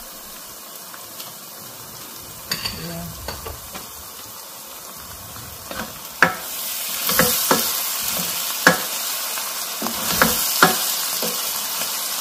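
Pepper and onion sauce frying in a nonstick pan, stirred with a spoon. The sizzle grows louder about halfway through as the stirring picks up, and the spoon knocks against the pan several times.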